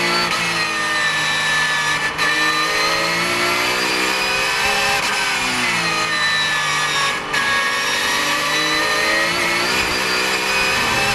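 Porsche 911 GT3 Cup (991) race car's flat-six engine heard from inside the cockpit, its note rising and falling as the throttle opens and closes. There are two brief cuts in the sound, about two seconds in and about seven seconds in.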